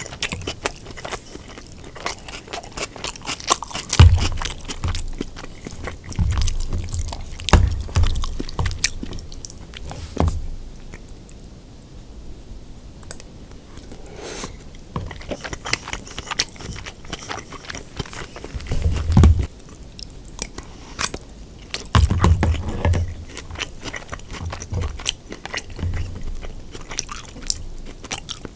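Close-miked eating: crunchy battered pork being bitten and chewed, with sharp crisp crackles and heavier chewing bursts in clusters. The loudest bites come about four seconds in, around nineteen seconds and around twenty-two seconds.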